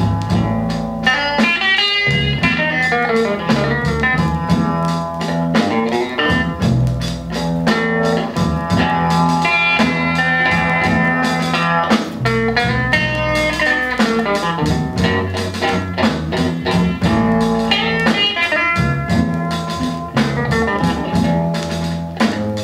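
Blues recording in an instrumental break with no singing: guitar playing a melodic line over a bass line and drums.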